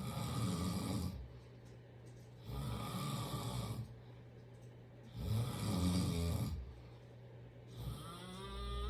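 Loud snoring: three long snores about two and a half seconds apart, then a softer sound near the end that rises in pitch.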